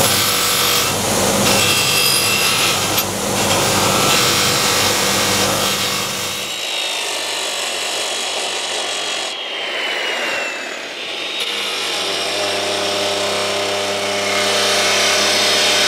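Bench grinder's wire wheel scrubbing rust off a steel angle bar, its motor humming steadily. From about six and a half seconds the sound changes to an abrasive chop saw cutting through the steel angle, a falling whine and then a steady grinding hum.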